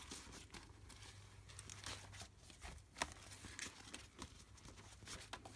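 Wet, dye-soaked deli paper crinkling and rustling faintly as gloved hands lift and handle it, with a few sharper crackles.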